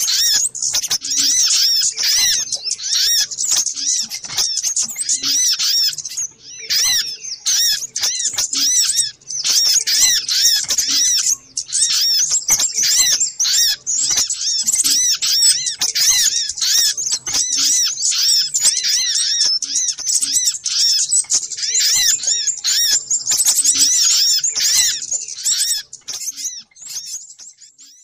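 Noisy, busy chattering of small songbirds: a dense stream of rapid, high-pitched twittering notes, overlapping without pause. It is a bird-trapping lure call (suara pikat) for the sogok ontong, and it fades out near the end.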